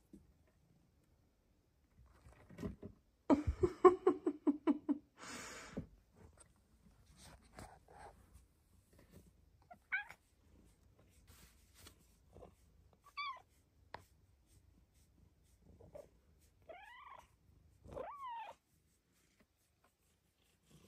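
Silver Bengal cat chirping and meowing: a loud, pulsing trill a few seconds in, followed by a short burst of rustling noise, then scattered short chirps and two drawn-out meows that rise and fall near the end.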